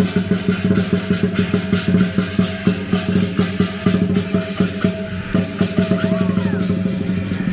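Chinese lion dance percussion: a large drum beaten fast, about four or five strokes a second, with crashing cymbals and a ringing gong. About five seconds in, the strokes close into a steady roll.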